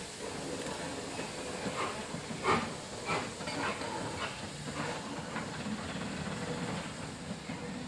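BR Standard Class 4MT 4-6-0 steam locomotive standing still and hissing steam, with a run of short knocks about every half second in the middle, the strongest about two and a half seconds in.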